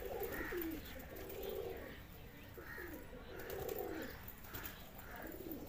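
Domestic pigeons cooing: a run of short, low coos, one after another.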